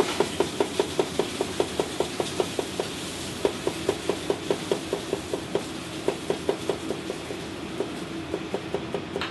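Chinese cleaver chopping garlic on a thick round chopping block: quick, even knocks of the blade on the block, about five a second. There is a brief break about three seconds in, and the knocks turn sparser and fainter near the end.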